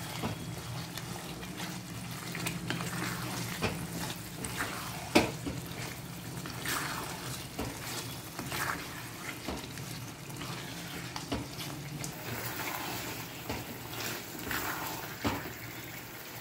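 Wooden spatula scraping and knocking against a kadai as marinated chicken is stirred through masala paste, with a light sizzle of frying in oil. A steady low hum runs under it and stops about twelve seconds in.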